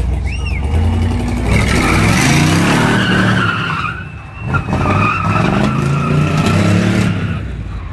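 V8 hot rod revving hard while spinning its rear tyres in a smoky drift, the tyres squealing. The revs rise and fall, dip briefly about four seconds in, then pick up again.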